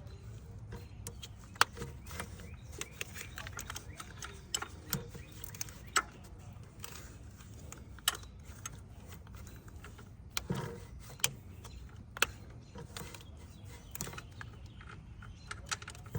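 Scattered metallic clicks and knocks of hand tools and parts being handled during engine-bay work, at irregular intervals over a low steady hum.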